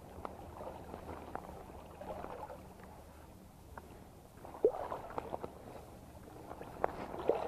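A hooked fish splashing at the water's surface as it is reeled in, with water sloshing and gurgling. There are two sharper splashes, one a little past halfway and one near the end.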